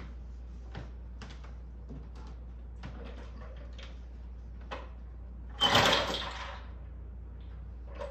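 Faint scattered taps and clicks, then just past halfway a sudden loud rushing noise lasting about a second and fading away.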